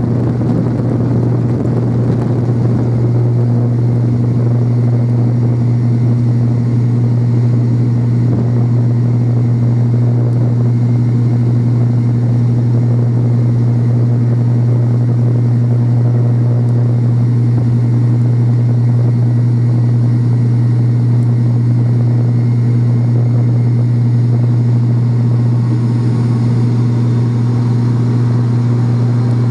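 Cabin sound of an ATR 42-500's Pratt & Whitney Canada PW127 turboprop engines and six-blade propellers at climb power. There is a steady, loud low propeller drone with a fainter higher hum, over a wash of airflow noise.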